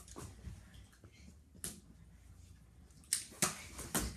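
A few sharp clicks and knocks from a toy Nerf dart battle: one about a third of the way in, then three or four in quick succession near the end, the last with a low thump.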